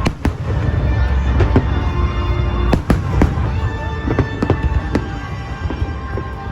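Aerial fireworks bursting in an irregular string of sharp bangs, about a dozen, over a deep continuous rumble, with music playing underneath.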